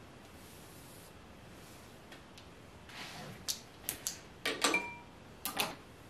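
Hair tools being handled: a soft rustle about three seconds in, then a string of light plastic clicks and taps over the next two and a half seconds as a hairbrush is put aside and a flat iron and comb are taken up.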